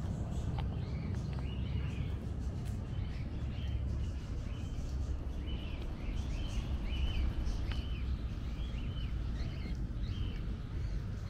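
Small birds chirping in many short, repeated calls over a steady low background rumble.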